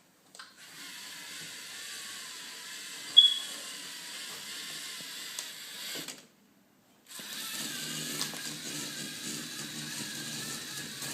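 Small LEGO robot's electric motors and gears whirring steadily as it drives, in a whine that wavers in pitch. A sharp click comes about three seconds in. The whirring cuts out for about a second midway, then resumes.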